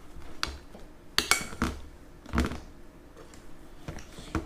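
A spoon knocking and scraping against a pot while stirring thick, sticky slime: a few separate sharp clinks, the loudest a little over a second in.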